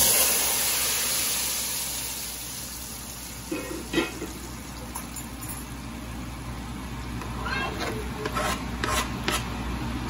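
Hot oil and fried onions (a tarka) poured into a pot of daal, giving a loud sizzle right at the start that dies away over about two seconds. A few light knocks and scrapes follow around the middle and near the end.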